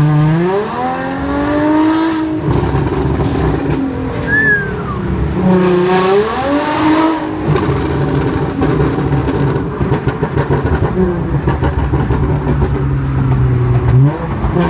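Audi S4 fitted with an AWE Touring cat-back exhaust under acceleration: the exhaust note climbs through the revs, dips and climbs again a few seconds later, then settles into a steady drone before rising once more near the end. The note has almost none of the old rasp, which the owner credits to the new exhaust.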